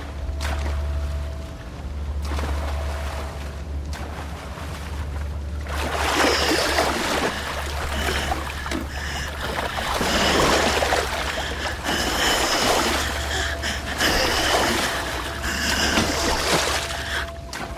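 Film soundscape of open water: water lapping and rushing under a steady low hum, with the rushing noise growing louder about six seconds in.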